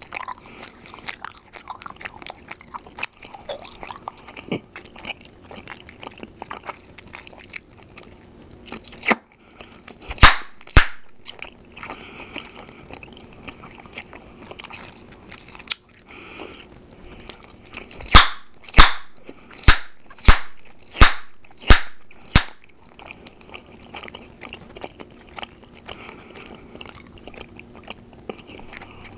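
Gum chewed close to the microphone with a steady patter of small clicks, broken by loud sharp gum pops: a few around the middle, then a quick run of about seven, one after another.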